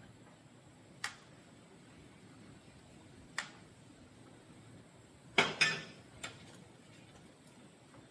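Sharp metal clinks and clatters from handling chainsaw parts and tools while fitting a new chain: two single clinks with a brief high ring, then a louder rattling clatter a little past halfway, followed by a couple of light ticks.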